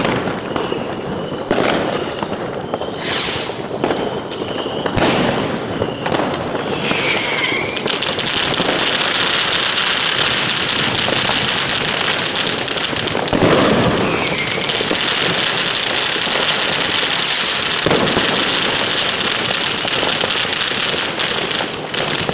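New Year's fireworks and firecrackers going off: scattered sharp bangs with a few short whistling tones at first, then dense, continuous crackling from about eight seconds in.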